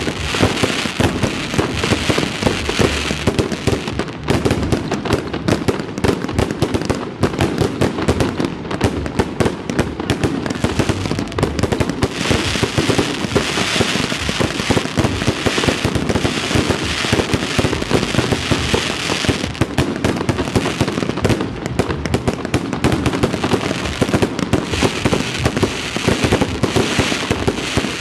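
Fireworks display: a dense, continuous barrage of aerial shell bursts and crackling pops, with stretches of hissing crackle that come and go.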